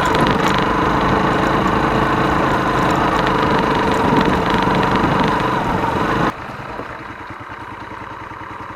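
Motorcycle engine running under way with wind and road noise, then about six seconds in the sound drops suddenly to a quieter engine idling with an even low putter.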